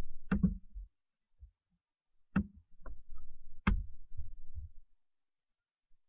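A few sharp clicks of a computer mouse and keyboard, each with a dull knock under it, spaced irregularly, as lines are drawn with the mouse while Shift is held.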